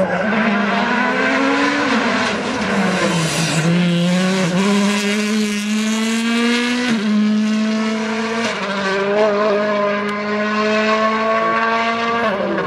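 Hyundai i20 Coupe WRC rally car's turbocharged 1.6-litre four-cylinder engine at full throttle. The engine note rises, falls back sharply about three seconds in as the driver lifts off, then climbs hard again, with quick upshifts near the middle.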